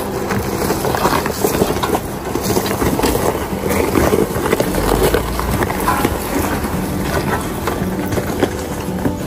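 A Jeep Wrangler crawls over loose creek-bed rocks with its engine running steadily, while the tires crunch and clatter on the stones.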